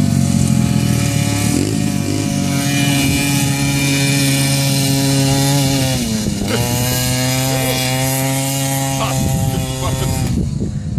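Engine of an off-road racing machine running hard at steady, high revs, with a brief drop in revs about six and a half seconds in before it pulls steadily again, then fading near the end.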